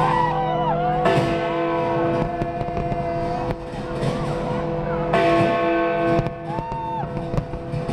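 A New Year's fireworks display: firework bangs and gliding whistles over music with sustained chords, with sharp bangs about a second in and again about five seconds in.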